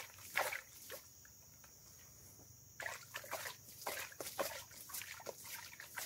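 Liquid fertilizer solution (potassium nitrate and boron fertilizer mixed in water) scooped from a plastic bucket and poured onto the soil, sloshing and splashing in short bursts, with a quieter spell of about two seconds about a second in.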